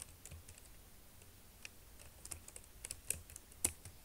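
Computer keyboard keys clicking in an irregular run of keystrokes as a command is typed. The loudest keystroke comes near the end, as Enter is pressed.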